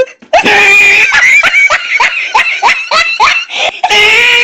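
A high-pitched voice shrieking in quick, short rising cries, several a second, like screaming laughter.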